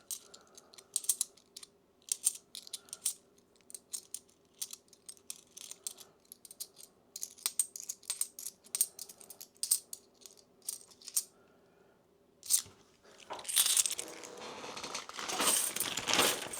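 50p coins clicking and clinking against each other as they are sorted through by hand, in many light separate clicks. About 13 seconds in comes a denser, louder stretch of rustling and jingling as coins are handled in bulk.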